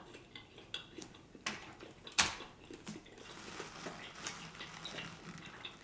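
Quiet mouth sounds of a person eating and licking his fingers: scattered small clicks, one sharper click about two seconds in.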